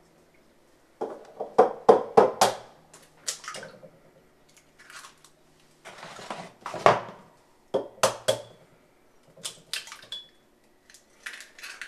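Raw eggs being taken from a cardboard egg carton and cracked into a mug: a scattered series of sharp taps and crunches of breaking eggshell, with handling of the carton.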